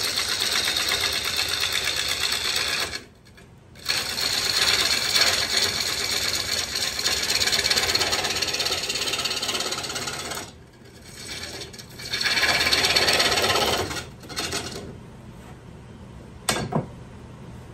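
Wood lathe gouge cutting a spinning red cedar bowl blank, a loud rough shaving noise that breaks off three times as the tool is lifted. Near the end the cutting stops, leaving the lathe's lower hum, and a single sharp knock sounds.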